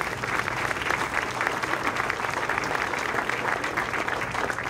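Crowd applauding steadily, many hands clapping together.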